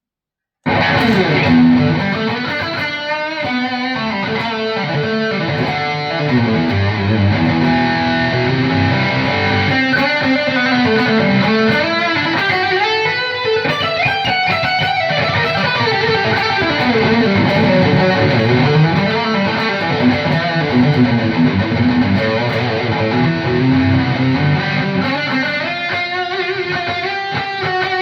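Electric guitar played through an ENGL amp's lead channel, with the signal going through an EQ pedal, starting less than a second in after a brief pause and running as continuous riffs and lead lines.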